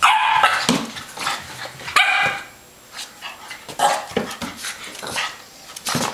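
Boston terrier puppy barking in high-pitched yaps: two loud barks, one at the start and one about two seconds in, then several quieter ones.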